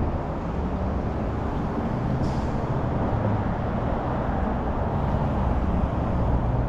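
Street traffic: cars running and passing, a steady low engine hum that gets slightly stronger after about two seconds.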